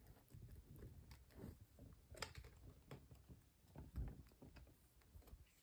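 Faint scratching and small clicks of a pet rat grooming and shifting its claws on a plastic cage shelf, with a soft thump about four seconds in.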